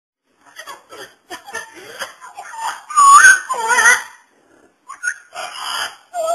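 Parrot chattering and whistling in a rapid run of short calls that glide up and down in pitch, loudest about three to four seconds in, with a brief pause before more calls near the end.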